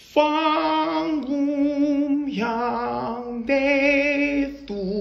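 A woman singing a drawn-out phrase of long held notes with vibrato, each about a second, stepping down in pitch and then back up.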